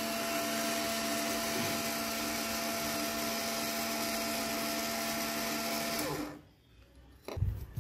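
Small yellow plastic DC gear motor running with a steady whine, driven through the rain sensor's relay circuit, then stopping about six seconds in. A low knock follows near the end.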